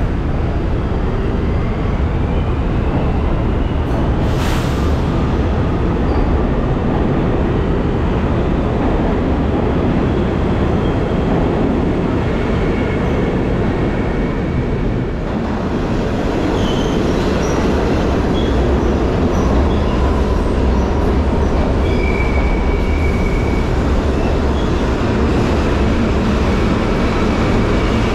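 New York City subway trains in an underground station: a continuous rumble of wheels on track, with a rising motor whine as a train pulls out in the first few seconds. About halfway through a train is heard approaching and coming in on the near track, with brief high wheel squeals.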